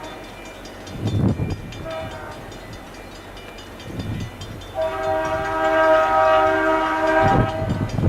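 Air horn of a Via Rail F40PH-2 diesel locomotive sounding: a short blast about two seconds in, then a long, loud blast from about five seconds in to near the end, with low rumbling underneath.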